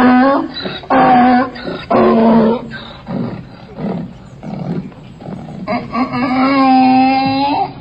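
Donkey braying: a run of loud hee-haws, harsh in-breath calls alternating with pitched out-breath calls, ending in one long drawn-out note.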